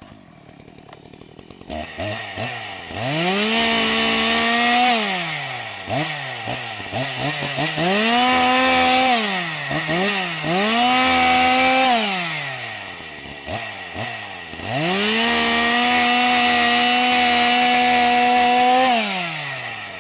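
Chainsaw engine revving up and dropping back to a low idle four times, each rev climbing quickly to a high held pitch; the last and longest is held about four seconds.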